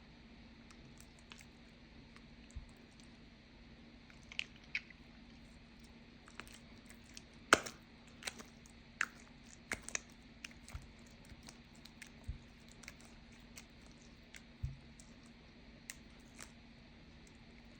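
Slime being handled, making scattered small clicks and wet pops with a few soft thumps, the loudest pop about halfway through. A faint steady hum sits underneath.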